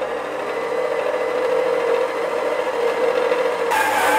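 Electric stand mixer running steadily on low speed, its dough hook kneading a stiff bread dough in a steel bowl. Near the end the motor steps up to a higher, louder pitch as it is switched to a faster speed.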